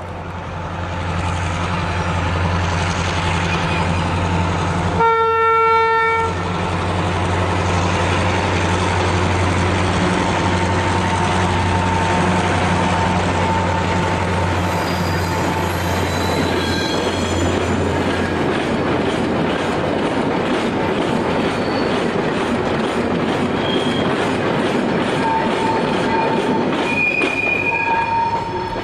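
Irish Rail 141 class diesel-electric locomotive passing close by with wagons: a steady engine drone with wheel and rail noise, one horn blast of about a second around five seconds in, and brief wheel squeals near the end.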